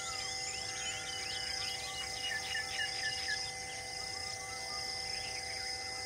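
Outdoor ambience of several birds chirping and calling over a steady drone of insects, with one bird giving a quick run of five short whistled notes about two and a half seconds in.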